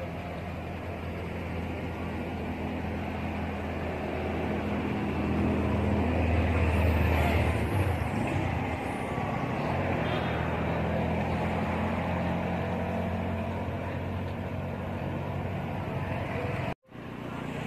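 Road traffic going past: a steady engine hum that swells about six to eight seconds in as a vehicle passes, then eases off. The sound cuts out abruptly for a moment near the end.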